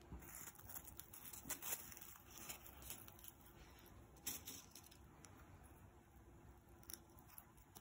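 Faint rustling of fabric ribbon being folded and pinned into a foam ball, with scattered light clicks, the sharpest about four seconds in.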